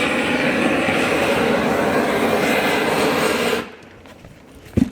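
Gas roofing torch burning steadily, heating torch-on bitumen felt, then cutting off suddenly about three and a half seconds in. A short thud near the end.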